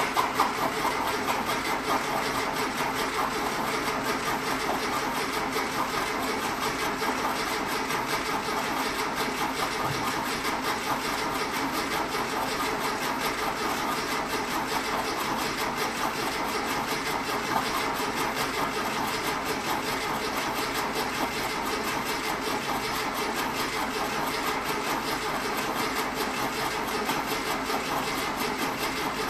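Starter motor cranking a freshly built air-cooled Volkswagen flat-four engine at a steady, even rate without it firing: the ignition coil is disconnected and the throttle held wide open, so the engine is only turned over to pump oil through it before its first start.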